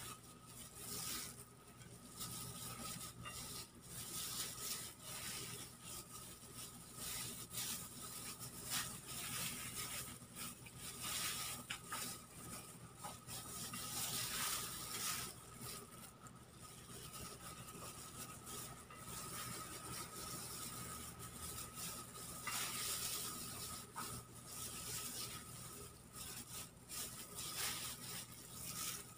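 Hands stuffing chopped tomato, onion and ginger into a raw squid body: soft, irregular rustling and scraping of the wet filling being handled and pushed in, over a faint steady hum.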